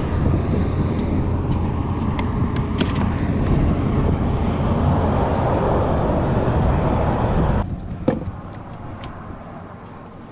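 Road traffic: the steady rumble of vehicles running past on the bridge. It cuts off abruptly about three-quarters of the way through, leaving quieter background noise with a couple of faint clicks.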